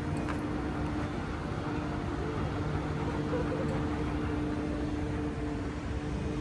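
Steady outdoor city background noise with a constant low, two-toned hum running through it.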